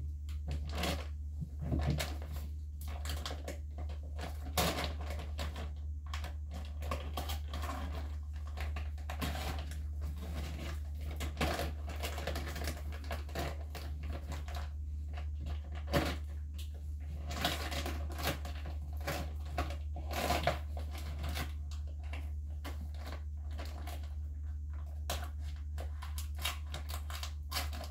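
Plastic mushroom grow bag crinkling as it is handled and cut open with scissors: a dense, irregular run of crackles and snips. A steady low hum runs underneath.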